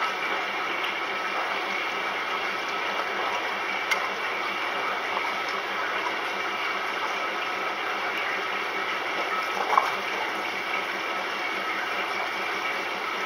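Maytag commercial top-load washer filling with water: a steady rush of water running into the tub, with two brief clicks, one about four seconds in and a sharper one near ten seconds.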